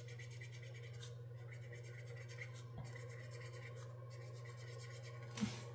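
Felt-tip marker scratching over paper in quick, even back-and-forth strokes, colouring in small squares on a paper chart. It is faint over a low steady hum, with one short knock near the end.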